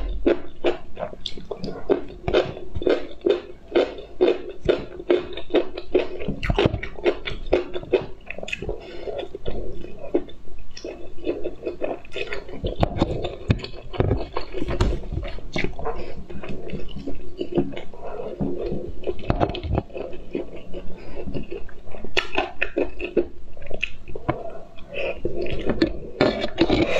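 Close-miked wet chewing and smacking of soft, jelly-like slices, a dense run of quick sticky mouth clicks. Near the end, instant noodles are slurped in.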